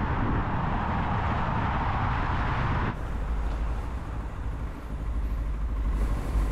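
Wind rush on the microphone and engine and road rumble from a motorcycle being ridden. About three seconds in the rushing noise drops off abruptly, leaving a quieter low rumble.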